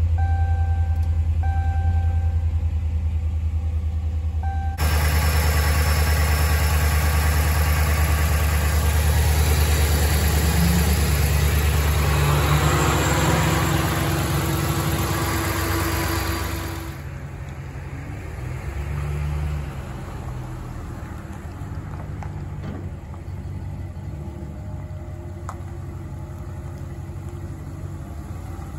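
The 5.7 L Hemi V8 of a 2014 Ram 1500 with 195,000 miles, running steadily at idle. For the first few seconds a dash warning chime beeps repeatedly over it. Then it is heard close up in the engine bay, much louder and fuller, and after that from outside the truck, quieter, as it moves off.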